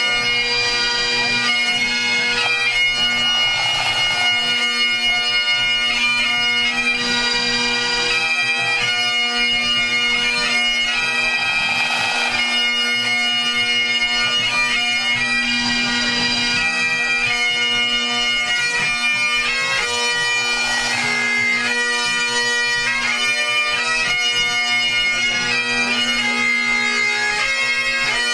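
Great Highland bagpipes of a pipe band playing together during the tune-up before competing: steady drones hold one low note under a chanter melody that moves from note to note.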